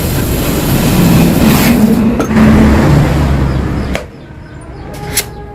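Yamaha RX-King two-stroke motorcycle engine revving hard, its pitch rising and falling. It cuts off suddenly about four seconds in, leaving a quieter background with a couple of sharp clicks.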